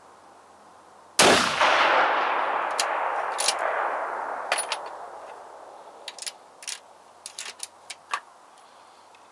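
A single high-powered rifle shot, its report rolling away over about four seconds. It is followed by a scatter of short, sharp clicks and clacks as the shooter handles the rifle.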